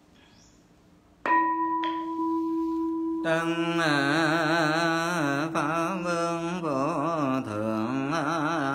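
A Buddhist temple bowl bell struck once about a second in, ringing with a steady tone, then from about three seconds in a Vietnamese Buddhist chant starts in a wavering, melodic line, reciting Buddha names.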